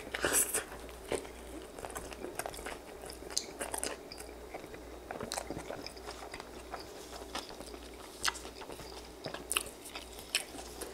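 A bite into a stuffed pita sandwich about half a second in, the loudest sound here, followed by close-miked chewing with scattered small mouth clicks and crunches.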